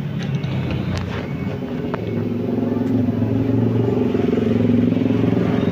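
A motor vehicle engine running close by in street traffic: a steady low drone that gets louder about two seconds in. A couple of light clicks come before it.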